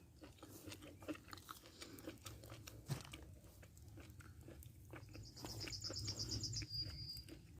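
A person chewing food close to the microphone, with soft irregular smacking and crunching. About five seconds in, a bird gives a brief, rapid high trill ending on a short steady note.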